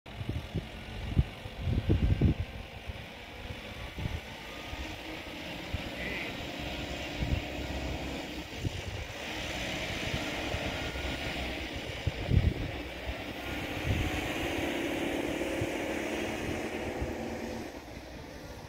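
WestfalenBahn Stadler KISS double-deck electric multiple unit rolling slowly past, its running noise and motor hum growing louder from about halfway and dropping off near the end. A few short low thumps, the loudest near the start.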